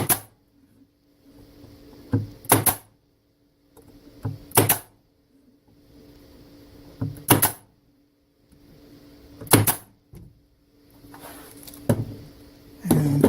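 Staple gun firing staples into pine beehive frame parts: sharp shots about every two to two and a half seconds, several coming in quick pairs.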